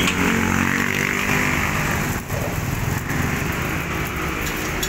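Motorbikes passing close by on a street, their engine note dropping slightly as they go by in the first second or so, over steady traffic noise.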